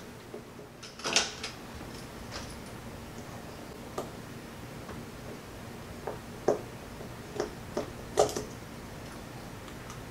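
Light, scattered clicks and taps of a screwdriver and small metal screws against a baitcasting reel's frame as the screws holding its magnetic anti-backlash brake are backed out. The clicks are loudest about a second in and twice more near the end.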